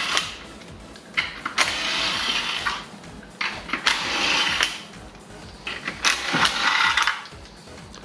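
Cordless impact wrench hammering lug nuts loose on a car's front wheel, in three bursts of about a second each with short pauses between.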